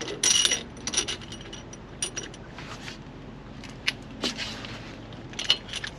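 Loose steel washers and bolt hardware clinking as they are handled and fitted onto a bolt: a rattle of metal-on-metal about half a second in, then scattered light clicks and taps.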